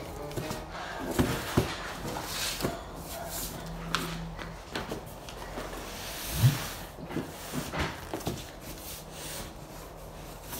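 Large cardboard shipping boxes being shoved and bumped together on a tile floor: scattered knocks and scrapes, with one louder thump about six and a half seconds in.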